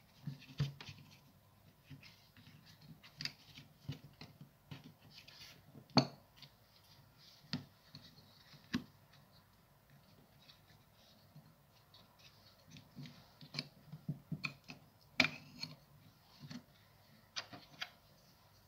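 Makita impact driver parts being handled by hand: irregular small clicks, taps and rubbing of plastic and metal as the motor and trigger switch are seated in the open housing, with a few sharper knocks scattered through.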